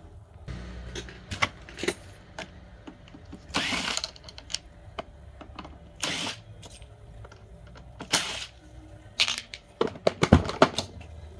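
Screwdriver working screws out of a Zojirushi rice cooker's plastic housing, with scattered clicks of tool on plastic and three short scraping rasps a couple of seconds apart. A quick run of clicks and knocks near the end as the rear cover panel is worked loose.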